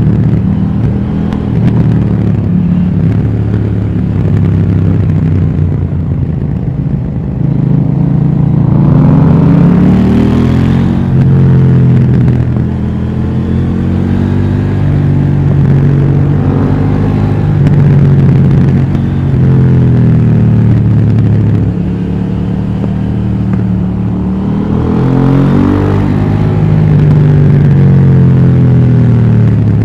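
KTM Duke 790 parallel-twin engine through its stock exhaust while riding, the revs climbing and falling again and again through the gears. The steepest climbs to high revs come about ten seconds in and again near the end.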